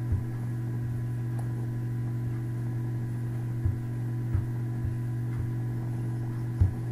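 A steady low electrical hum, with several soft mouse clicks: one at the start and a handful more in the second half as the installer's Next and Close buttons are pressed.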